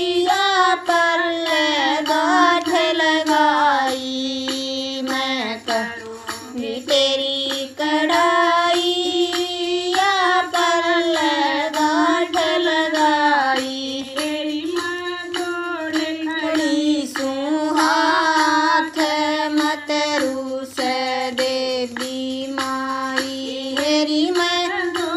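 A woman singing a Haryanvi devotional bhajan to the Mother Goddess, one unaccompanied-sounding voice carrying a melody in long held phrases that rise and fall.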